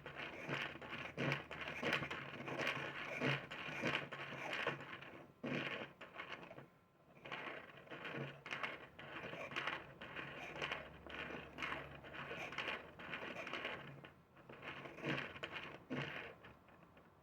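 3D-printed plastic barrel cam and follower being run, the follower scraping along the cam track with irregular plastic clicks and knocks. The sound stops shortly before the end.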